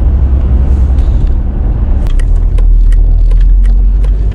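Steady low engine and road rumble heard inside a van's cabin while driving, with a few light clicks or rattles in the second half.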